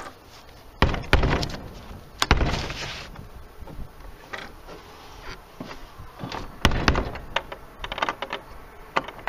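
Knocks and thuds on a wooden shed door: two heavy ones in the first few seconds, another after a pause, then a run of lighter clicks and taps near the end.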